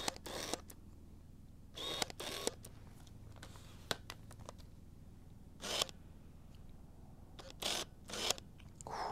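Tamron 28-75mm f/2.8 zoom lens on a Nikon D700 autofocusing, its focus drive giving several short whirring bursts, a noisy grinding from a slow, well-worn lens.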